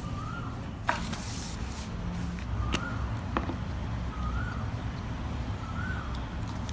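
Hands handling paper and a glue stick on a desk: a sharp click and a brief paper rustle about a second in, then two more small clicks, over a low steady rumble. A bird calls throughout, a short rising-and-falling whistle repeated about every second and a half.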